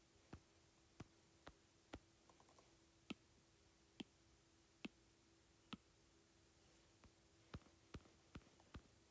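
Faint, irregular taps on a tablet's glass touchscreen, about a dozen of them, over a faint steady hum.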